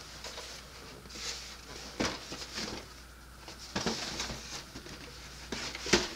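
Cardboard model kit box handled on a wooden table: light rustling and scraping, with a few sharp knocks, the loudest near the end.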